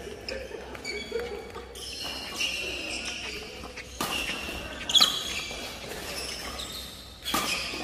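Badminton doubles rally: sharp racket strikes on the shuttlecock and shoes squeaking on the court floor, the loudest squeal coming about five seconds in.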